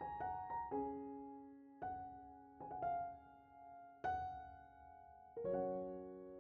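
Background piano music: a slow melody of single struck notes, each ringing out and fading before the next.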